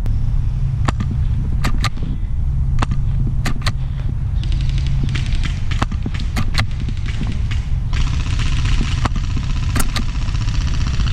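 Airsoft gunfire: scattered sharp snaps, joined by rapid full-auto rattling from about four and a half seconds in and again from about eight seconds, over a steady low rumble.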